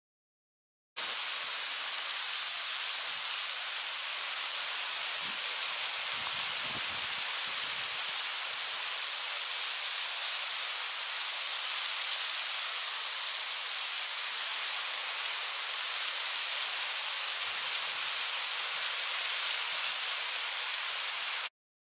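Small waterfall: a thin stream of water falling over a rock ledge and splashing onto the rocks below, making a steady, hissing rush. It starts abruptly about a second in and cuts off just before the end.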